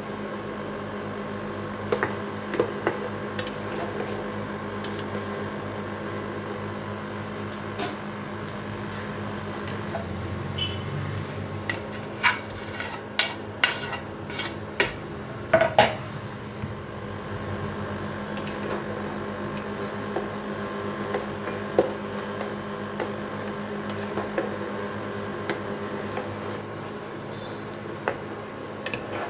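A metal utensil clinking and scraping against a cooking pot, in scattered knocks that cluster about halfway through, over a steady background hum.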